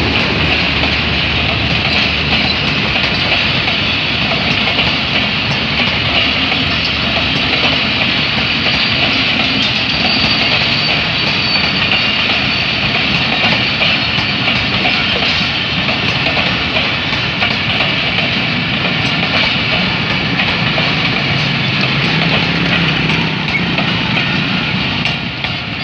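Passenger coaches of the Awam Express rolling past at close range: a loud, steady rumble and clatter of steel wheels on the rails.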